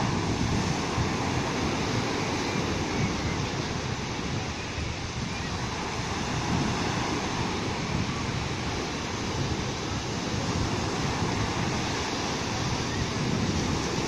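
Sea surf on a sandy beach: small waves breaking and washing up the shore in a steady, continuous rush.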